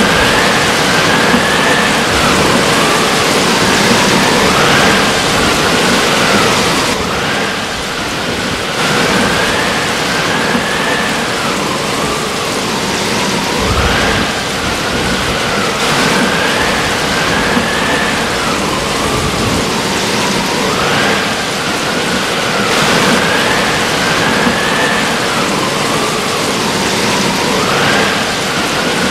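Heavy rain and wind of a hurricane, a steady loud hiss, with a whistling tone that rises and falls every couple of seconds.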